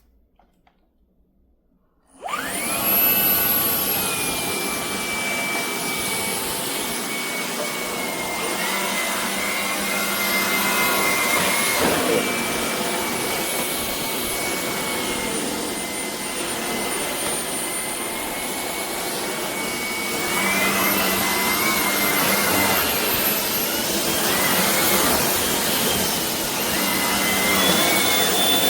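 Shark PowerDetect cordless stick vacuum (IP1251) switching on about two seconds in and running with a steady high whine. The whine steps up and down in pitch a few times in the second half, as the motor speed changes.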